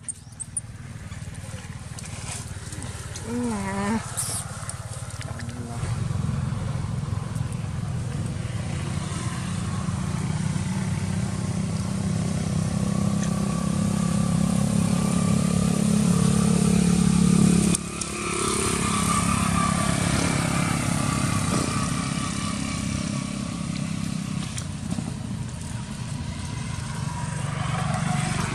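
Motorcycle engines running on the road, a steady low drone that grows louder toward the middle, drops sharply, then goes on.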